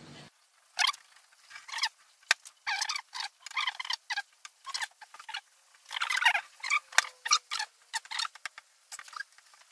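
Wet wood glue squelching as it is squeezed from a plastic bottle and smeared by hand along a wooden laminate strip: a run of short, irregular squishy squeaks.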